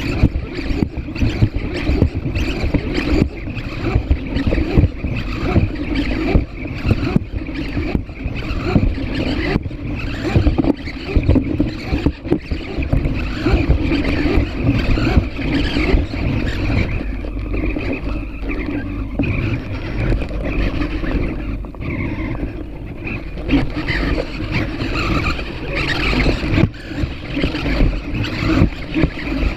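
PhantomX hexapod robot walking: its servos drive the six legs with a steady mechanical buzz and many small clicks and scrapes of feet and joints, heard close up from the robot itself.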